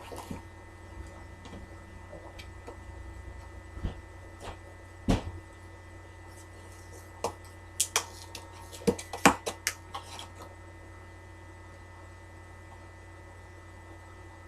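Hands working open the tabs of a cardboard phone box: scattered clicks and taps, most of them between about four and ten seconds in, over a steady electrical hum.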